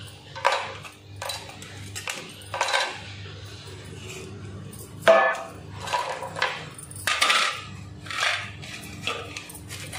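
Metal kitchen utensils being handled: a stainless steel plate, knife, peeler and hand grater clinking and knocking as they are moved and set down. It comes as a string of separate clinks, the loudest about five seconds in.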